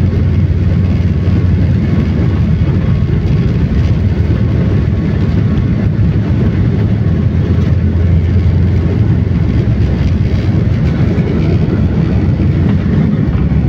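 Steady, loud low rumble of a passenger jet's engines and airflow heard from a window seat inside the cabin.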